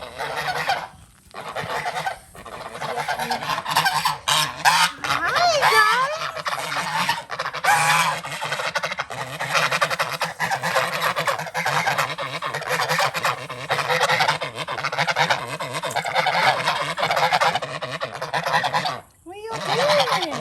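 A flock of domestic geese honking loudly and almost without pause, many calls overlapping.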